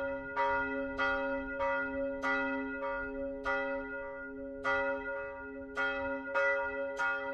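Church bells pealing, struck in a steady run about one and a half to two times a second, each stroke's ringing carrying on under the next.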